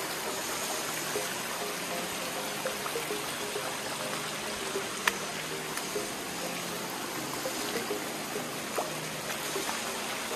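Shallow stream water running and trickling over smooth rock slabs at the top of a waterfall, a steady rushing with soft background music underneath.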